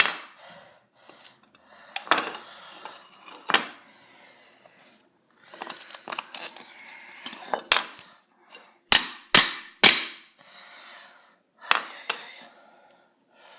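Pieces of a broken ceramic bowl being handled, knocking and clinking together in sharp, ringing clinks at irregular intervals, with a quick run of three about nine seconds in and softer scraping between.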